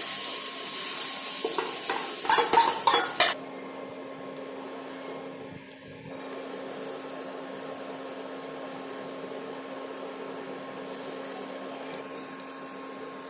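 Beaten egg mixture poured onto a hot oiled tawa, sizzling loudly, with a spoon scraping and knocking against the bowl a few times about two to three seconds in. The sound then drops suddenly to a quieter, steady frying hiss with a low hum.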